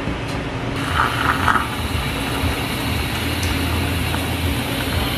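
Whipped-cream siphon dispensing cream onto a drink, with a few short spurts about a second in, over a steady low machine hum.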